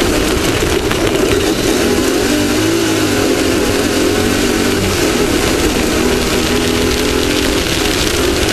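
Off-road race vehicle's engine running hard at speed, its pitch wavering briefly two to three seconds in, over a constant rushing hiss.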